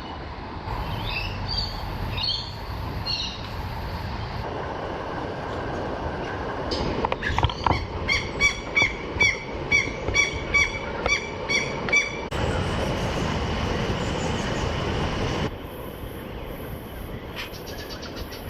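Outdoor ambience of steady wind and water noise, with a bird calling in a quick run of about ten short, sharp repeated notes near the middle. The background changes abruptly a few times.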